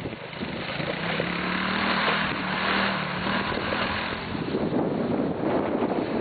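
A 200cc four-wheeler (ATV) engine runs as it is ridden. Its drone is clearest in the first half and gives way to a rushing noise, with wind on the microphone, near the end.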